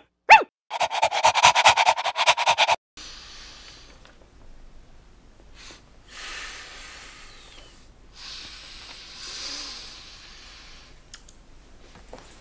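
Animal sound effect: a quick pitched call at the very start, then about two seconds of fast panting that stops abruptly. After that, quiet breathing in a small room, with two longer breaths out.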